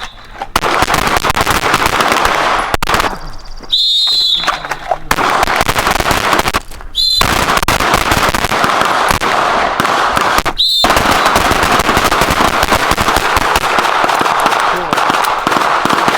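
Short, shrill whistle blasts every three to four seconds, each followed by a stretch of dense, rapid pistol fire from a whole line of shooters firing at once. The whistle is the start signal for each string of fire.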